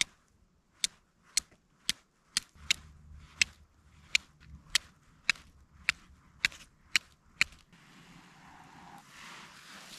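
Flint struck against a high-carbon steel striker, about a dozen sharp metallic strikes roughly two a second, throwing sparks onto char cloth to start a fire.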